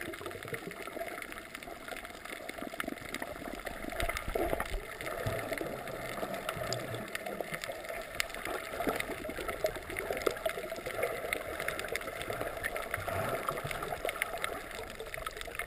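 Underwater sound picked up by a GoPro in its waterproof housing while snorkeling over a coral reef: a steady wash of water, with small clicks and crackles scattered through it.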